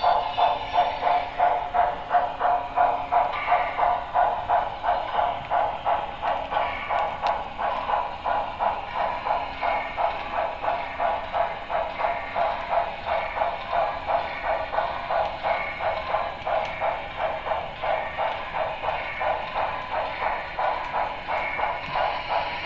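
HO-scale Broadway Limited 2-10-4 steam locomotive's sound decoder playing a steady rhythm of steam exhaust chuffs, about three a second, through the model's small speaker.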